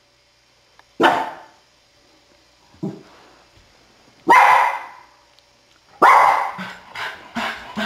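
A dog barking: single barks about a second, three and four seconds in, then from about six seconds a fast run of barks, roughly four a second.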